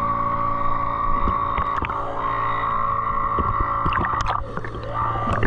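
Boat motor running steadily with a constant drone, easing briefly about four and a half seconds in before picking up again.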